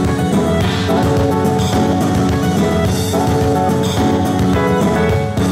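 Loud dance music with drums and guitar and a steady beat.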